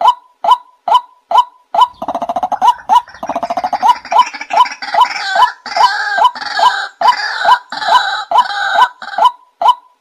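White-breasted waterhen calling: a steady series of short "wak" notes, a little over two a second. About two seconds in, this breaks into a fast stuttering run, then into louder, harsher overlapping calls, and the steady notes resume near the end.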